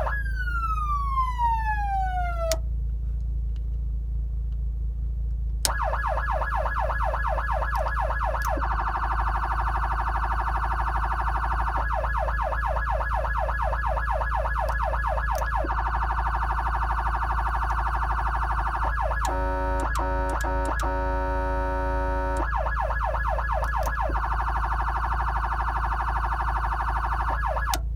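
Federal Signal Touchmaster Delta electronic siren amplifier. A tone winds down and stops, and after a pause the siren cycles through a rapid yelp and a faster warble several times. In the middle it gives a steady buzzing horn tone broken into short blasts. A constant low electrical hum runs underneath.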